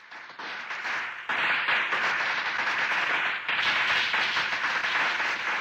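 Fireworks crackling: a dense spray of tiny pops that swells suddenly about a second in and again past the middle.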